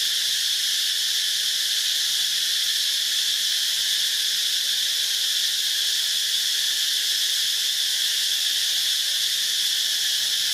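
Steady chorus of insects: a continuous high-pitched drone with no breaks or changes.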